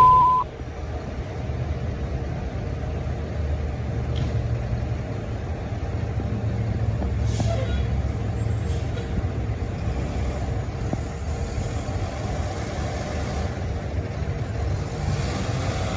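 Fire engine's diesel engine running with a steady low rumble, with two short air-brake hisses about halfway through. A steady dispatch alert tone cuts off in the first half second.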